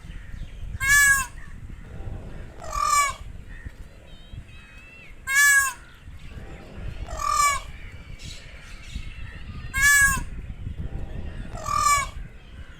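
Peacock calling: six loud, short calls about two seconds apart, each bending in pitch, over a steady low rumble.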